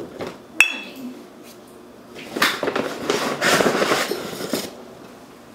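A sharp click about half a second in, then about two seconds of scratchy rubbing and small knocks: a dry-erase marker writing on a small whiteboard held close to the table.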